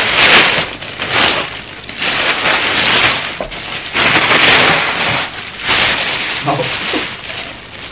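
Wrapping paper being torn and crumpled off a present, in a series of loud crackling rips.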